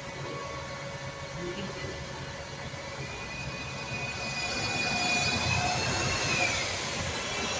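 London double-decker bus driving close past, its engine and drive running with a high whine that sets in about halfway through, grows louder, and then drops in pitch and fades near the end.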